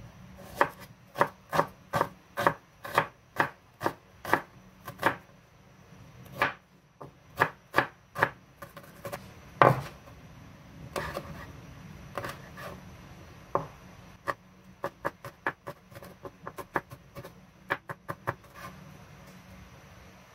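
Kitchen knife chopping on a bamboo cutting board, slicing a red onion and then red chilies: a series of sharp knocks on the board, about two a second at first, with quicker, lighter strokes near the end.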